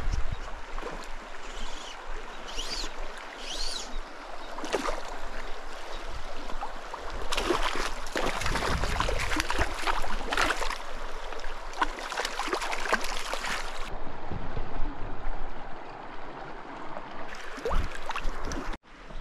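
Shallow creek water running over gravel, with a louder spell of splashing from about seven to fourteen seconds in as a hooked cutthroat trout is drawn in and handled in the water.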